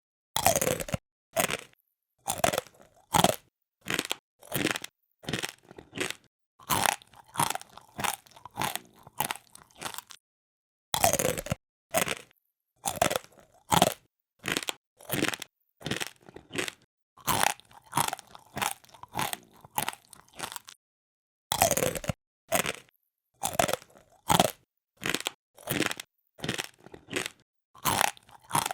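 Crunchy food being bitten and chewed close to the microphone, the crisp 'pori-pori' munch. The crunches come in a steady run, about one and a half a second. It breaks off twice with a short pause, each time starting again with a louder bite.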